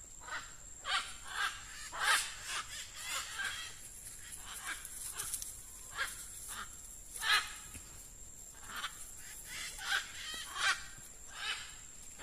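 Macaws giving a string of loud, harsh squawks, one every half second to a second, some louder than others.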